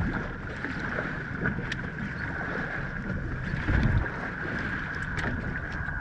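Small fishing boat on the water: water slapping against the hull under wind on the microphone, with a heavier low slap about four seconds in.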